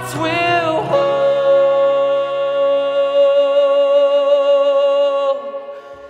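Music: a voice sings a short phrase, then holds one long note that fades out near the end.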